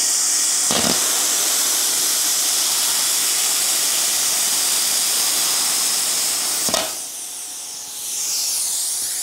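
Plasma cutter cutting 2 mm stainless steel plate at 35 amps with 5 bar of air: a loud, steady hiss of the air and arc at the torch, with a sharp click about a second in. Near seven seconds in, once the plate is cut through, there is another click and the hiss drops to a quieter rush of air.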